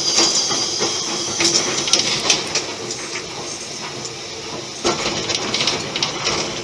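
Steam locomotive heard from its footplate while moving slowly: a steady hiss of steam with irregular knocks and clanks.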